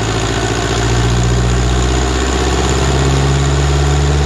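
Ursus C-360 tractor's four-cylinder diesel engine running steadily on a dynamometer, with a slight shift in pitch about two seconds in, while it smokes heavily from the exhaust.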